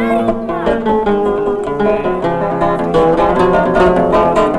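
Music played on plucked string instruments, a quick run of picked notes over a fuller accompaniment.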